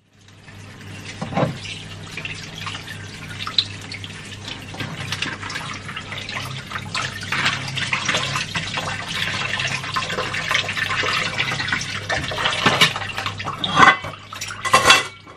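Water running from a tap into a sink while food is rubbed and rinsed by hand, with small clicks throughout and a couple of louder knocks near the end.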